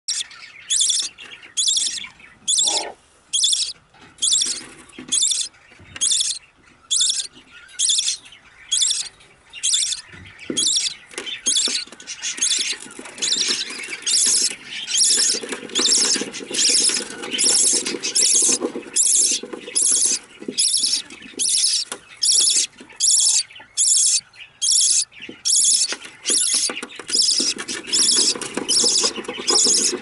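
Budgerigar nestlings begging, with short raspy calls repeated evenly about twice a second. The calls grow louder and fuller about halfway through.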